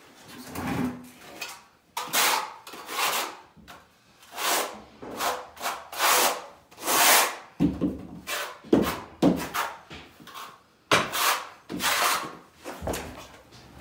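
A trowel scraping and spreading tile mortar over a concrete floor while setting floor tiles: about a dozen rough scraping strokes, roughly one a second, a few in the second half with a duller knock.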